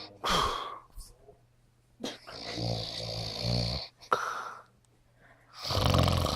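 An elderly man snoring heavily. There is a long snore about two seconds in and another near the end, with shorter breaths between.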